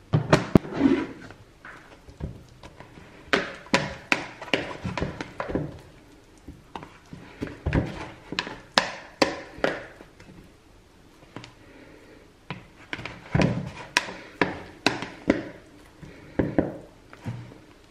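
Sourdough dough being stretched and folded by hand in a plastic mixing bowl, with the lid handled: irregular clusters of short knocks and thunks as the bowl and its lid bump and shift on the counter, mixed with the soft slap of the wet dough.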